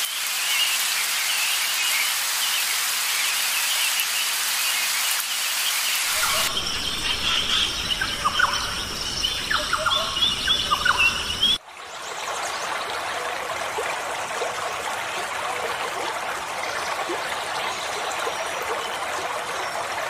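Heavy rain hissing onto a forest pond. About six seconds in it gives way to forest ambience with birds chirping in short falling notes over steady high tones. A little before the midpoint it cuts to the even rush of a small stream running over rocks.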